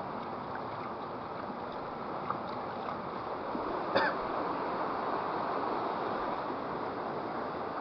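Steady rushing of water flowing in a small stream, with one brief sharp sound about four seconds in.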